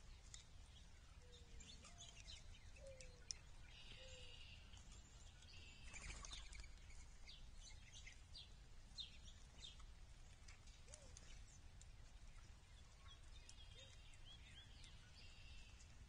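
Faint, scattered chirps and short calls of small birds around a backyard seed feeder, over a low steady background rumble, with a brief rustle about six seconds in.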